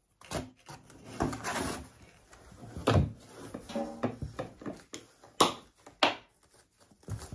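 Handling noises on a desk: scrap cardboard and a strip of fabric rustling and sliding, with irregular light knocks as a thin wooden blank and other objects are set down on the cardboard.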